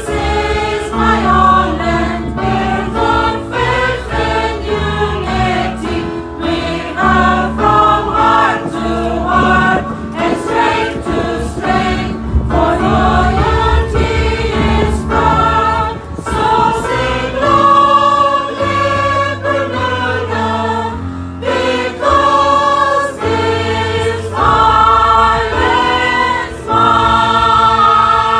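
A mixed choir singing a stately anthem in harmony, phrase after phrase, with sustained low notes underneath the voices.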